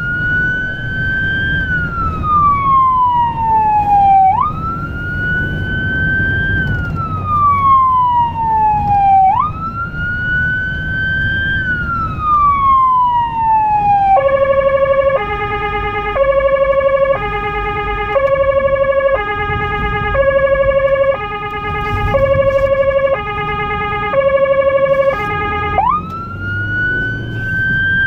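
Electronic emergency siren of a blood-transport car, heard from inside the cabin. It wails, jumping up quickly and falling slowly, three times, then switches about halfway through to a fast alternating two-tone, and returns to the wail near the end. Low engine and road rumble runs underneath.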